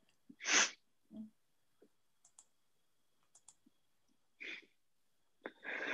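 Quiet headset or webcam microphone picking up a breath about half a second in and another near the end. Between them come two soft double clicks of a computer mouse, press and release, as the presentation slide is advanced.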